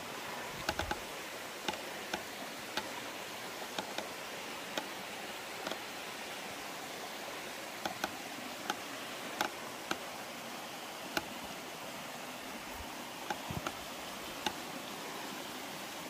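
Steady rush of a small waterfall and creek, with irregular sharp clicks and crunches of footsteps on rock and dry leaves.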